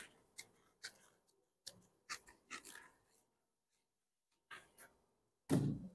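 Whiteboard duster wiping a marker board in a series of short, faint rubbing strokes. A brief louder sound comes near the end.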